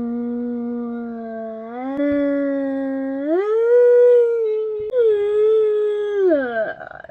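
A long drawn-out howl on a held note. It steps up in pitch twice, then slides down and breaks off near the end.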